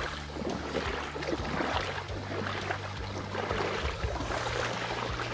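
Feet splashing through shallow river water as a child wades and then runs, kicking up spray.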